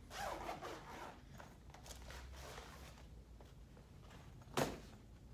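Handling noise as cricket bats are moved about: a rustle, then a single sharp knock near the end.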